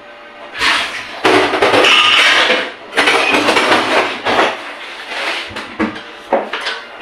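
Dishes and kitchen utensils clattering and clinking at a kitchen sink in two loud stretches, followed by a few lighter knocks near the end as an upper cupboard door is opened.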